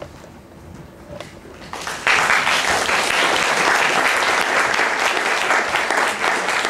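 Theatre audience applauding. It breaks out suddenly about two seconds in and then holds steady.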